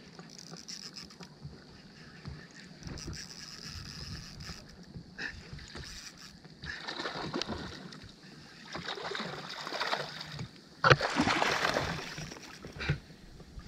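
Water sloshing and splashing against the hull of an inflatable boat while a fish is reeled in, with scattered low knocks and a louder rush of splashing noise about eleven seconds in.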